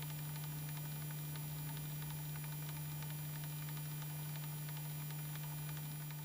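Steady low electrical hum with hiss and fine crackling static, unchanged in pitch and level.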